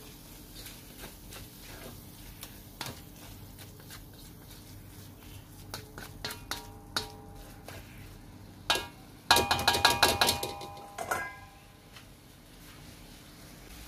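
Metal wok ladle scraping and stirring minced pork in a wok, with scattered light clicks. About two-thirds of the way through comes a quick run of loud ringing clanks as the ladle knocks against the wok.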